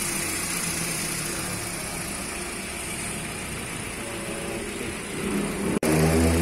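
Freshly overhauled Hyundai Elantra inline-four engine idling steadily. Near the end the sound cuts out for an instant and comes back louder.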